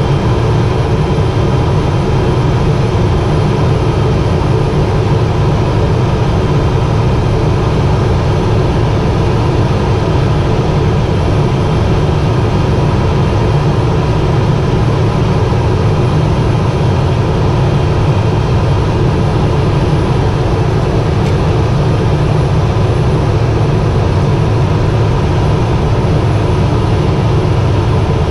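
Steady cabin noise of a Cessna P210 Silver Eagle's Rolls-Royce turboprop engine, heard from the cockpit at low power as the plane rolls along the runway after landing: a constant low drone with a faint steady high tone over it.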